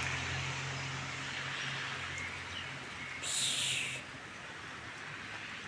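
Outdoor ambience in light drizzle: a steady low engine hum fades away over the first four seconds. A brief hiss comes about three seconds in.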